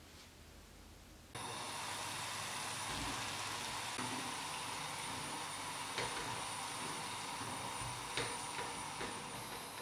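Shredded cabbage, carrot and white beans sizzling in a frying pan while a wooden spatula stirs them, knocking lightly against the pan a few times. The sizzle starts suddenly about a second in, after quiet room tone.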